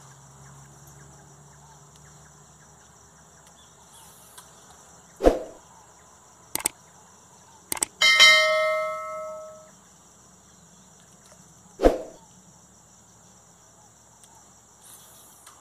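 Subscribe-button animation sound effect: two quick clicks, then a bright bell ding that rings and dies away over about two seconds. Two short thumps come before and after it, and a steady high insect drone runs underneath.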